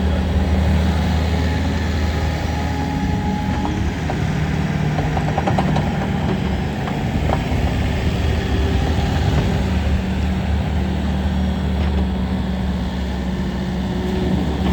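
Bobcat S450 skid steer loader's diesel engine running steadily. Its speed drops a little about four seconds in and picks back up near ten seconds, with a few light clicks in the middle.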